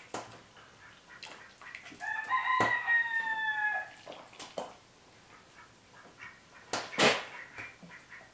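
A rooster crows once, a single drawn-out call of about two seconds that falls slightly in pitch. Around it a metal ladle knocks against a stainless steel pot and strainer a few times, the loudest knock about seven seconds in.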